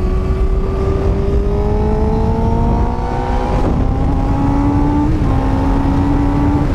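Motorcycle engine pulling under steady acceleration, its pitch climbing slowly. About three and a half seconds in it drops with an upshift, then climbs again, over wind rush on the microphone.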